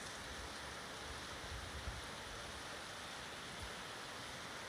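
Heavy rain falling as a steady hiss, with water running across a flooded street.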